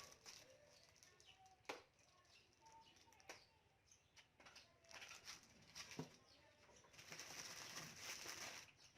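Faint rustling of packaging being handled as the amplifier is unboxed, with a few sharp clicks and a longer stretch of rustling near the end.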